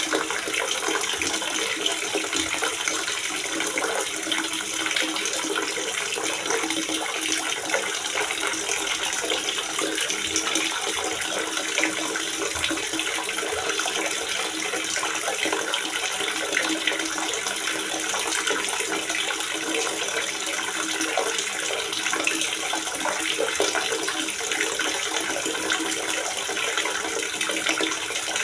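Water gurgling in a water reservoir, a steady rushing splash that never pauses, with little deep rumble beneath it.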